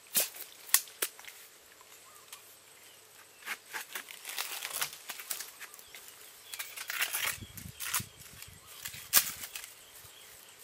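Sharp wet slaps and splashes in mud and water: several separate smacks in the first second, one at about three and a half seconds and a loud one at about nine seconds, with a short spell of scraping and splashing about seven seconds in.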